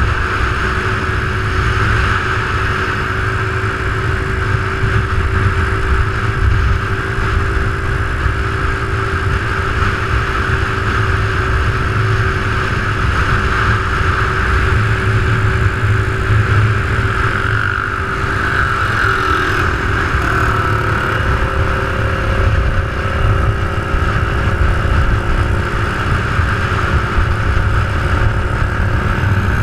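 Motorcycle engine running at a steady cruise, mixed with heavy wind rush on a handlebar-mounted camera; the engine note shifts briefly about two-thirds of the way through.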